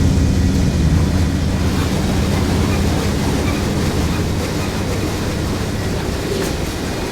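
BNSF freight train passing at speed. A diesel locomotive's low engine rumble fades in the first second or two and gives way to the steady rush of tank cars rolling by on the rails, slowly getting quieter.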